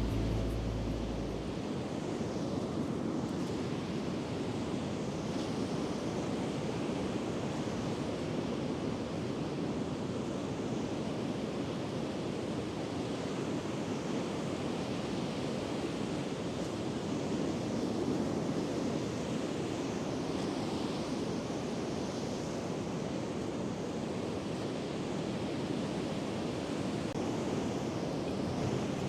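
Sea surf washing onto the beach: a steady rush of breaking waves, with some wind.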